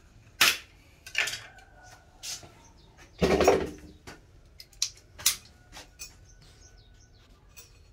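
A run of irregular sharp clicks and knocks, with a louder, longer knock about three seconds in.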